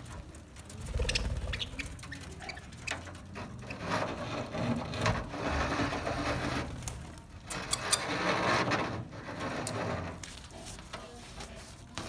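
A flock of budgerigars chattering, a busy, irregular twittering that swells louder twice in the middle for a couple of seconds at a time.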